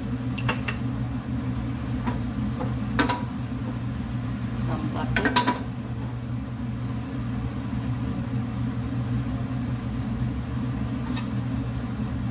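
Ghee going into a hot nonstick frying pan on a gas range: a spoon clinks against the glass jar and the pan, and the pan is shifted on the grate. This gives a few sharp clicks, the loudest about three and five seconds in, over a steady low hum and a faint sizzle.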